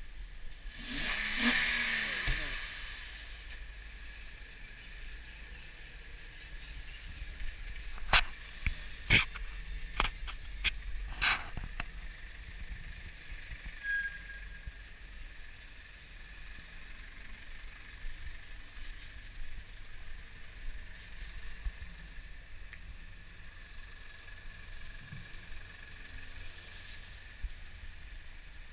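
2006 Honda Ridgeline's 3.5-litre V6 starting about a second in, with a short burst of noise and a falling pitch as it settles, then running as the pickup drives slowly around. A run of five sharp clicks or knocks about eight to eleven seconds in.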